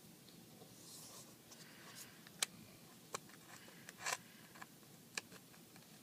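Small hand tools scraping faintly and clicking sharply against an iPad's frame during a glass repair: soft scraping, then about half a dozen crisp clicks, the loudest about two and a half seconds and four seconds in.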